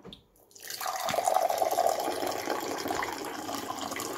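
A click or two of the Virgin Pure T7 water purifier's dispense button, then cold water starts pouring from its spout into a drinking glass about half a second in and keeps running steadily.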